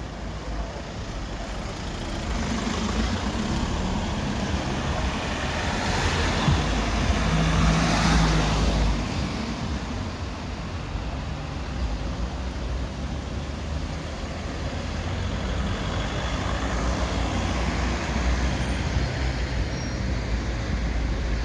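Street traffic noise, with a motor vehicle passing and growing louder about six to nine seconds in, then fading back to a steady hum of traffic.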